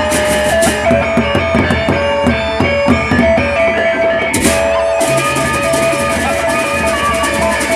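Sasak gendang beleq gamelan ensemble playing: large double-headed barrel drums beaten with sticks, together with hand cymbals and gongs, over a steady line of held pitched notes.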